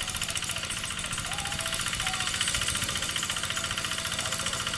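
Quick G3000 two-wheel hand tractor's single-cylinder diesel engine running steadily with a rapid, even chugging beat while it works the soil.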